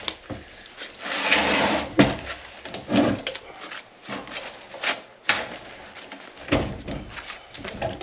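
Workshop handling noise: irregular clunks and knocks of tools and metal parts being picked up and set down, with a longer scraping rub about a second in.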